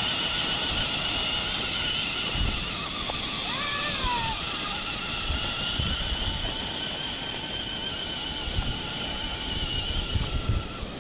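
RC crawler truck's motor and gears whining steadily under load as it tows a child on a sled, the whine wavering slightly in pitch and weakening near the end.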